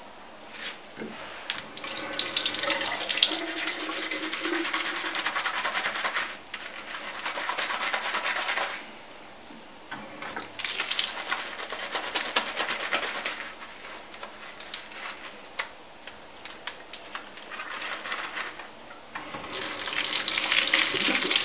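Tap water running into a bathroom sink in several spells, with wet hands rubbing and rinsing under the stream; the water noise drops back between spells.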